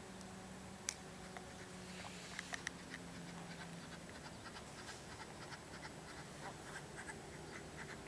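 Faint sounds from domestic geese on the water: a sharp click about a second in, then a string of short soft ticks and chirps.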